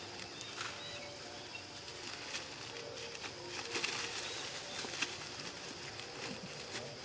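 Scattered rustling and light clicks with faint short high-pitched chirps.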